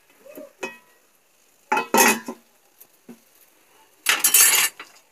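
Metal pans clattering against the iron grates of a gas stove as they are moved. There is a loud knock about two seconds in and a longer rattle a little after four seconds.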